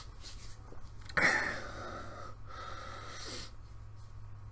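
A man breathing close to the microphone: one long breath starting about a second in, over a low steady hum.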